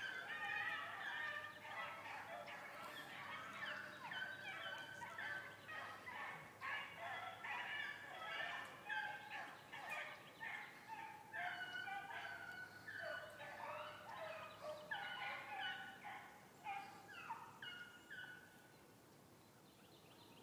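Several rabbit hounds baying on a running rabbit, many short, high, overlapping cries following one another several times a second, thinning out and falling away near the end.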